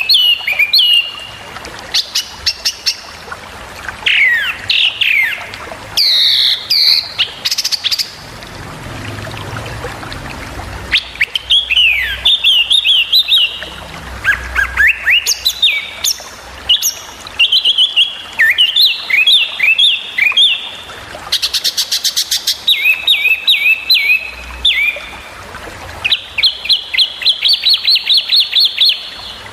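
Small songbird singing fast, sharp, varied phrases: quick down-slurred chirps, rattling trills and rapid runs of repeated notes, broken by short pauses. These are the sharp burst phrases ('tembakan') wanted in a masteran recording for training caged songbirds.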